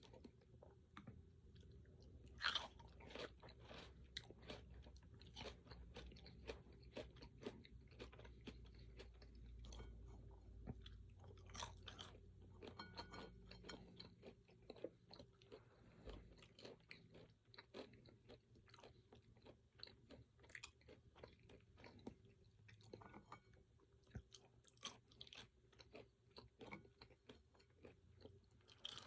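Close-miked chewing of fruit and pecans: many small crunches and mouth clicks, with two louder crunching bites, one about two and a half seconds in and one near the middle.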